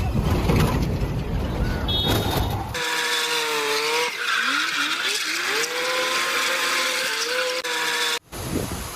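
Motor vehicle sound: a loud rumbling noise, then from about three seconds in a wavering, gliding whine with overtones that cuts off abruptly near the end.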